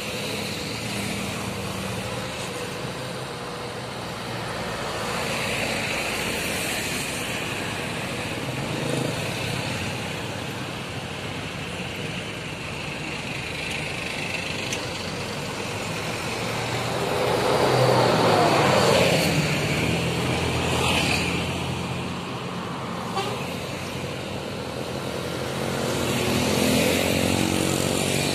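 Mixed road traffic passing close by: buses, trucks, cars and motorcycles with steady engine and tyre noise, and a vehicle horn sounding. A heavy vehicle passes loudest about two-thirds through, and a motorcycle engine rises as it approaches near the end.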